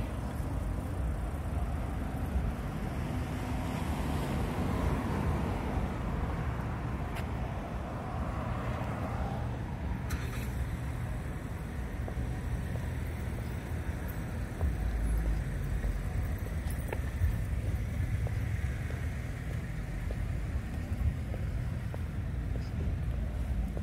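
City street traffic: cars passing, their tyre and engine noise swelling as one goes by about five seconds in and again past the middle, over a steady low rumble.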